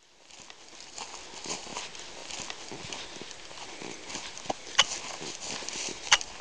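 Footsteps and the rustle of legs and gear brushing through heather and low brush as a hiker walks, a few steps a second, with two sharp clicks near the end.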